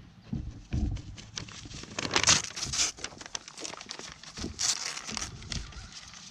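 Paper crinkling and tearing as a goat grabs a paper sign in its teeth and chews on it, with two louder bouts of rustling about two seconds in and near five seconds.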